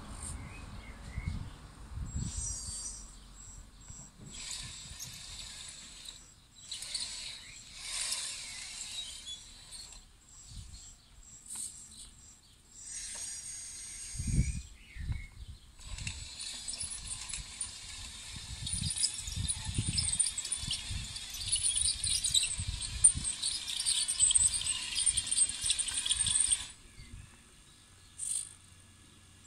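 Electric drive motors and gearing of a 1:14-scale RC Caterpillar 973 track loader working in dirt: stop-start bursts of gear and track noise, with motor whines that rise and fall in pitch. A longer run of continuous motor whine and running-gear noise comes while the machine drives forward and cuts off suddenly near the end.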